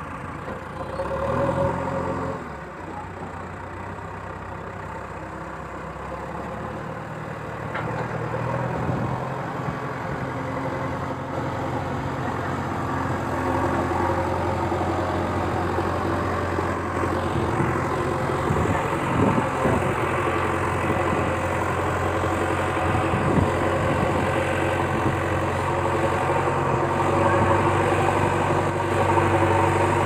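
Remote-controlled toy JCB backhoe loader running with a steady engine-like drone that grows gradually louder.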